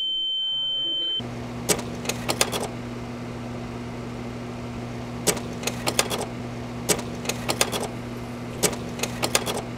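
A high steady ringing tone cuts off about a second in, giving way to a low hum and hiss. Over the hum, camera shutters click in quick bursts of several clicks, four times.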